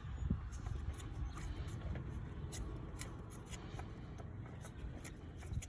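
Faint rubbing and scattered small clicks of an oil filter being twisted loose by hand, over a low steady rumble.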